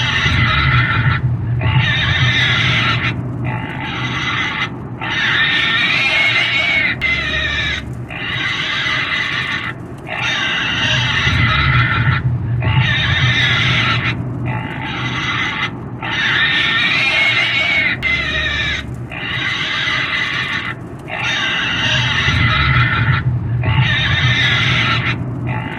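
A pig squealing in a long run of shrill screams, each about a second or more long with short breaks between.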